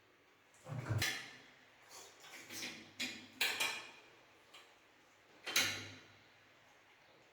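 Handling noises from plumbing work: about five sharp knocks and clicks of hard parts or tools being set down and fitted, the heaviest two, about a second in and about two-thirds through, with a dull thud.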